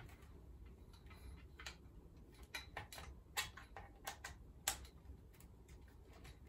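A ring light being fitted onto a tripod head by hand: a scattering of light clicks and taps, the sharpest about three quarters of the way through.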